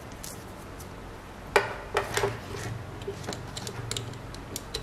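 Handling noise from a USB-C cable being untangled and plugged into a desktop USB microphone: a sharp click about a second and a half in, then a few lighter clicks and rustles over a low steady hum.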